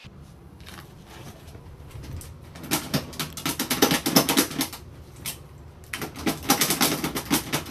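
Two bursts of rapid clicking and rattling, the first about three seconds in and the second near the end.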